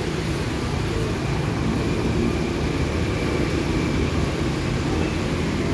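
Steady rumble of street traffic noise, with no distinct events standing out.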